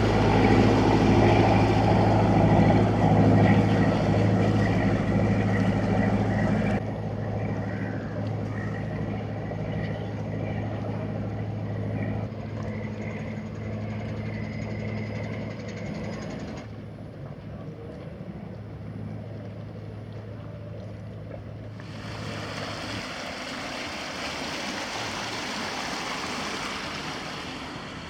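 The 1939 inland cargo ship HARUDHA's 1200 hp MaK diesel engine running steadily with a deep, even hum, loud for about the first seven seconds, then fainter after an abrupt change. The engine tone drops out near the end, leaving a rushing noise.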